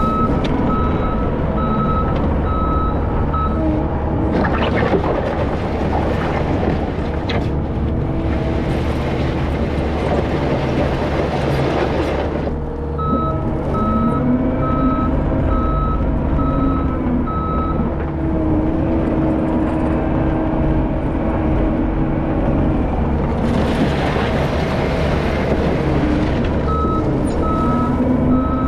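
Diesel bulldozer running steadily while spreading gravel, its reversing alarm beeping in three spells as it backs up. Between the spells come louder stretches of engine and track noise as it pushes forward.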